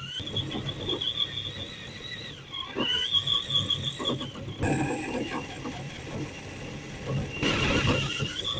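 Traxxas TRX-4 RC crawler's electric motor and gearbox whining as the truck drives through snow, with the pitch shifting as the throttle changes. The whine drops out briefly a few times, over low rumbling and knocks from the chassis and tyres.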